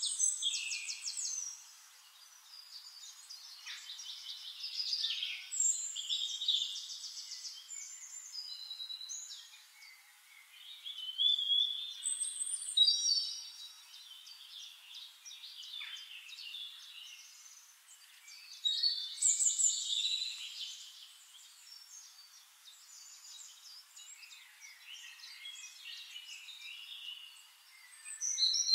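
Small birds chirping and singing in bursts of quick trills and whistles that come and go every few seconds.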